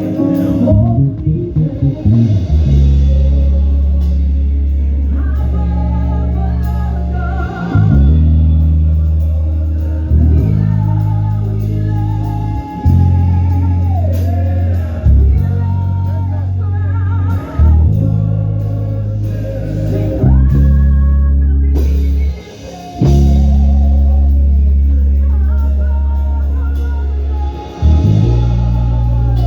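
Gospel praise music: a bass guitar holds long low notes, changing every couple of seconds, under guitar and singing.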